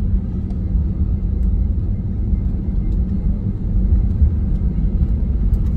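Steady low rumble in the cabin of an Airbus A320neo as it rolls along the runway after landing: engine noise and the tyres rumbling on the pavement.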